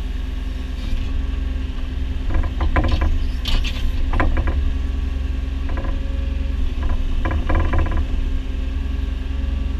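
Excavator engine running steadily while digging, with several bursts of metallic clanking and rattling from the bucket and arm.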